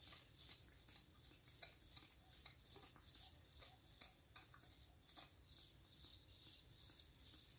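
Near silence, with faint, irregular small clicks several times a second.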